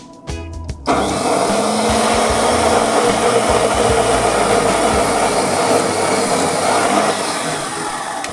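A loud electric woodworking machine running steadily. It starts suddenly about a second in and eases off slightly near the end.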